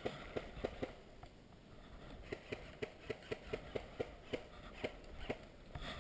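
Quick footsteps on rough ground, a steady series of short knocks about three to four a second, like someone moving at a jog.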